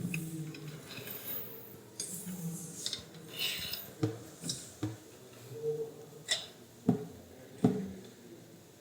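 A metal guide rod and slider parts being handled and fitted together, with light scraping and about five sharp clicks and taps in the second half.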